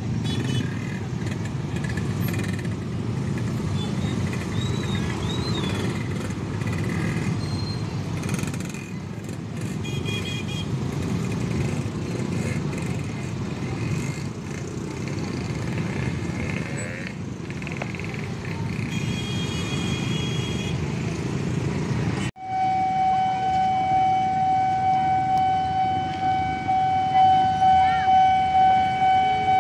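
Many idling motorcycles at a closed railway level crossing, with scattered horn toots and voices. About two-thirds of the way in, this gives way to a level-crossing warning alarm: one steady high tone, pulsing about twice a second near the end, the signal that a train is about to pass.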